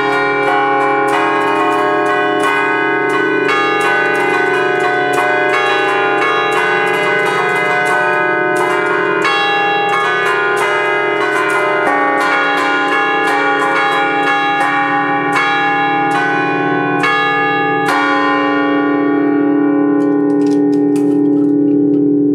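Five bronze church bells in D-flat, cast by the Ottolina brothers of Seregno in 1932, struck in quick melodic figures from a baton keyboard (tastiera) in the bell tower, heard loud and close. The strokes stop about eighteen seconds in, and the bells ring on and slowly fade.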